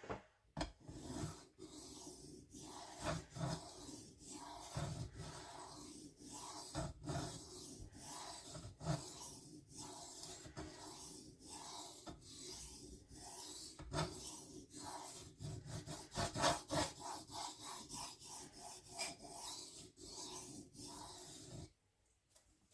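S35VN steel knife blade being stroked back and forth on a wet PDTools dual-grit diamond sharpening plate, a steady series of gritty scraping strokes that stop near the end. The blade is being worked until a burr forms along the edge.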